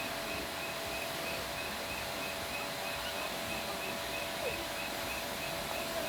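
Evening outdoor ambience: a small animal chirping in a steady, even rhythm, about two and a half high chirps a second, over a faint steady hum and hiss.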